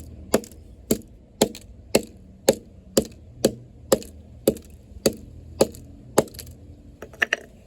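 Repeated blows hammering on an LG flip phone to crack its camera, an even beat of about two sharp knocks a second, then three quicker, lighter hits near the end.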